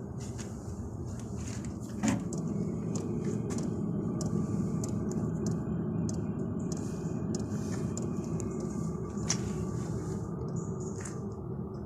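Portable 8 kW diesel air heater running: a steady low rumble from its combustion fan and burner, with scattered light clicks and a sharper click about two seconds in and again near nine seconds.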